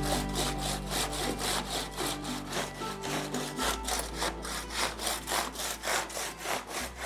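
Handsaw cutting into a stone wall with quick, even back-and-forth strokes, about three to four rasping strokes a second.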